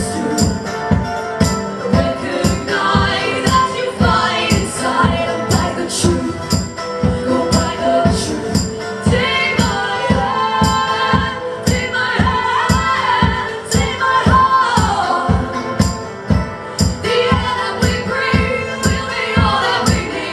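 Live band music: guitar and singing over a steady beat with tambourine.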